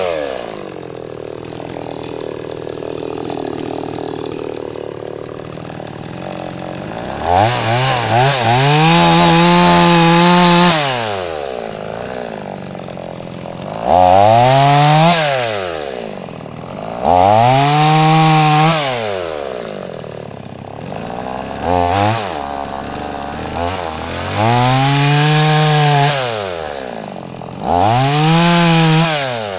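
Two-stroke gas chainsaw bucking an oak log into blocks. It idles for the first several seconds, then is revved to full throttle for a cut of a few seconds and dropped back to idle, about five times over, with one short blip of the throttle in between.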